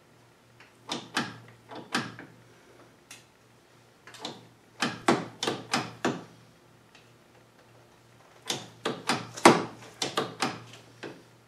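Cast-iron compound top slide of a South Bend 13-inch lathe being pushed back and forth by hand along its dovetail, giving three bursts of rapid metal clacks and knocks about a second in, near the middle and near the end, the last the loudest. The hand test checks the freshly adjusted gib, which now gives the slide some drag.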